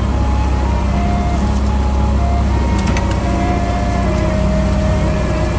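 A steady, loud engine drone with a few held tones above it that shift in pitch now and then.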